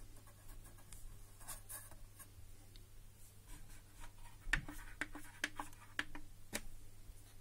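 Faint ticks and clicks of an AV receiver's front-panel controls being worked: the volume turned down, then the input selector buttons pressed in turn, with a few sharper clicks in the second half. A faint low mains hum runs underneath.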